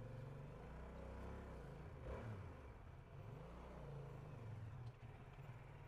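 SRT 800X motorcycle engine running while riding, a steady low drone whose pitch dips and rises again around the middle.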